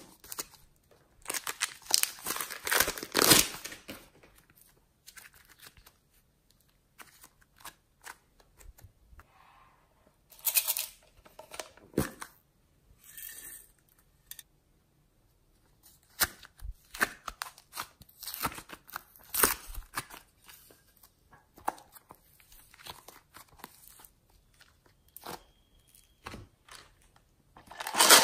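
Plastic slime packaging being handled and unwrapped: crinkling and tearing of clear plastic film, with clicks and taps of the plastic containers. It comes in irregular bursts separated by short quiet pauses.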